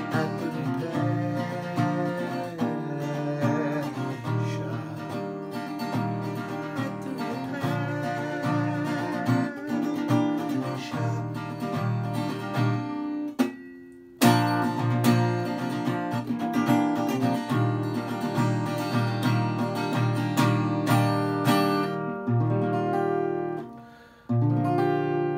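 Acoustic guitar strummed and picked in a slow instrumental outro of an indie-style ballad. The playing cuts out briefly about halfway through and restarts sharply, then dips again near the end.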